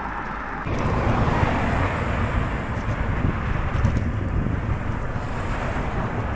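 Wind rushing and buffeting over the microphone of a camera on a moving bicycle, a steady rumble that jumps louder under a second in.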